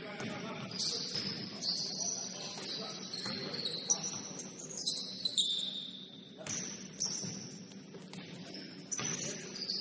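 Basketball sneakers squeaking on a gym floor: short, high squeaks that slide in pitch, coming again and again, with several sharp thuds among them over a murmur of voices in the hall.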